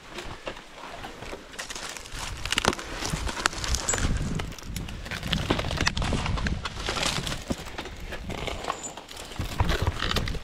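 Dry coconut palm fronds and husk fibre rustling and crackling, with irregular knocks and scrapes, as a climber shifts his gloved hands, legs and rope through the crown of the palm.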